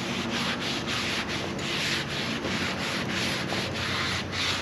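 Paper towel held in tongs rubbed back and forth across a hot steel griddle top, spreading seasoning oil: a rhythmic scrubbing swish, about three strokes a second.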